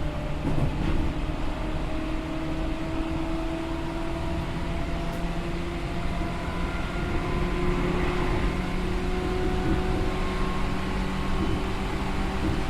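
Seibu New 2000 series field-chopper electric train heard from inside the car: traction motor and gear whine rising slowly in pitch as the train gathers speed, over a steady rumble of wheels on the rails.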